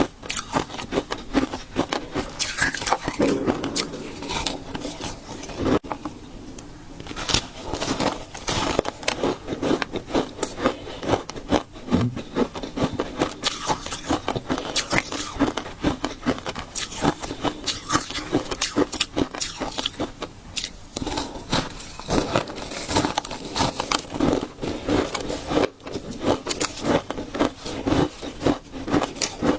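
Ice crunching between the teeth: shaved ice and frozen matcha ice being bitten and chewed in quick crisp crunches, with a short lull about six seconds in.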